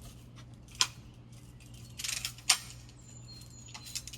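A few sharp clicks and clacks of something being handled, spaced a second or so apart, the loudest about two and a half seconds in, over a low steady hum.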